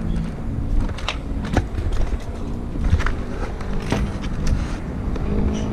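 Wind rumbling on a helmet-mounted action camera's microphone, with traffic noise from the street below and scattered sharp clicks and knocks.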